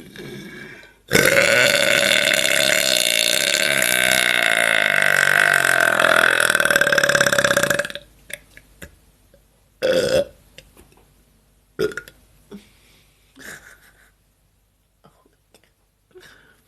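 A woman's single long, loud belch, lasting about seven seconds and cutting off sharply, its pitch wavering as it goes. A few brief, quieter sounds follow.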